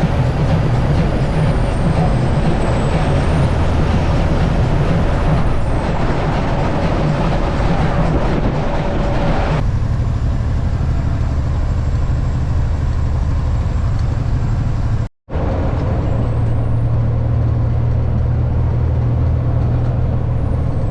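Heavy semi truck's diesel engine running steadily under way, with road noise. The sound changes abruptly about ten seconds in and drops out for a moment near fifteen seconds.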